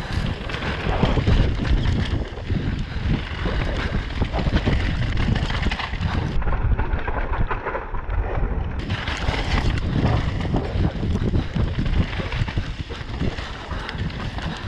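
Wind rushing over a helmet-camera microphone, with the continuous rumble and irregular rattling knocks of a mountain bike riding fast over rough trail.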